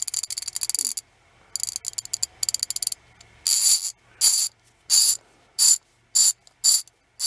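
Ratchet ball screwdriver's ratchet pawls clicking as the handle is worked back and forth. It starts with a few quick runs of rapid clicks, then from about halfway settles into short metallic rattles about every 0.7 s.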